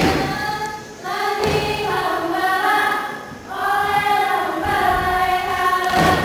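Saman dance troupe singing a chant together in long held phrases, breaking about a second in and again midway. A sharp hit opens the passage and another comes near the end.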